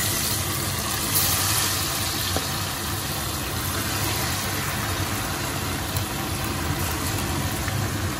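Prawns deep-frying in a steel pot of hot oil: steady sizzling and bubbling, with a low steady hum underneath.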